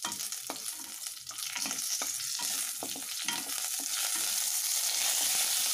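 Curry leaves and whole spices (cumin, cinnamon, cloves, cardamom) sizzling in hot oil in a kadai for a tempering, stirred with a wooden spatula that knocks and scrapes against the pan. The sizzle grows louder from about two seconds in.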